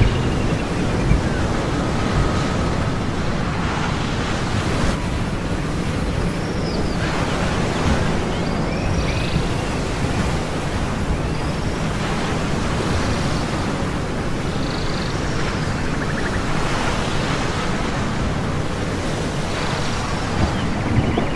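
A steady rushing noise like ocean surf and wind, with short high curving calls recurring every few seconds over it.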